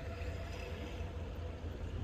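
Steady low outdoor rumble with a faint hum above it, no distinct event.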